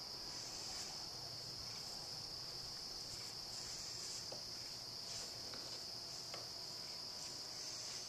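Evening insect chorus: a steady, unbroken high-pitched trill, with a few faint soft ticks scattered through it.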